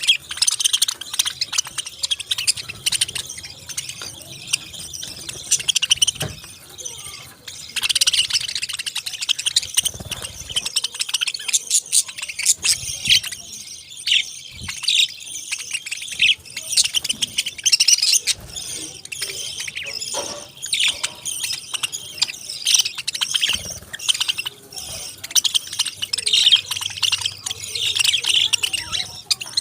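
Several parakeets chirping and chattering nonstop, with quick high chirps overlapping one another.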